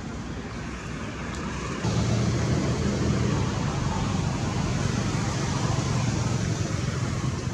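Steady outdoor background noise: a continuous low rumble with hiss over it, stepping up louder about two seconds in.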